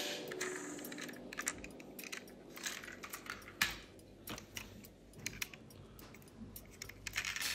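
Irregular light clicks and taps from handling a 1:24 scale diecast model car, with a sharper knock about three and a half seconds in.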